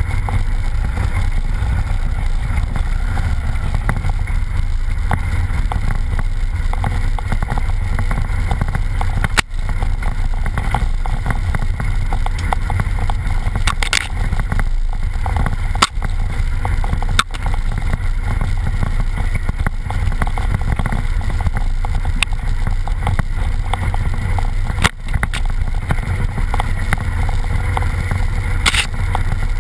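A vehicle driving along a rough forest track: a steady, low, noisy engine-and-road rumble, broken by a few brief clicks.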